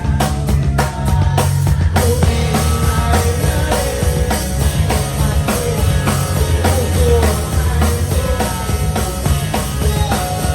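Live rock band playing: a drum kit with a heavy bass drum drives the beat under bass, guitar and a melody line that comes in about two seconds in.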